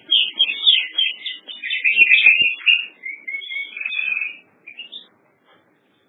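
A songbird singing a fast, varied string of chirps, whistles and trills, which stops about four and a half seconds in with a few last short notes.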